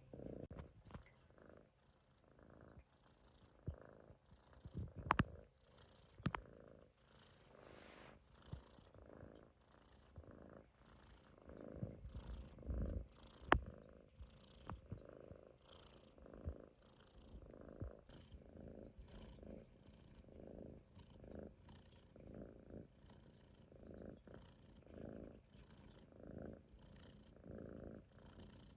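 Munchkin kitten snoring softly in its sleep: a faint raspy rush with each breath, about one a second. A few sharp clicks sound here and there.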